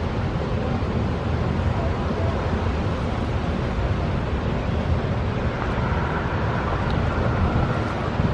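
Steady wind buffeting the microphone, a continuous low rush with no break.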